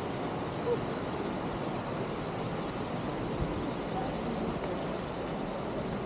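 Waterfall pouring, a steady rushing of falling water.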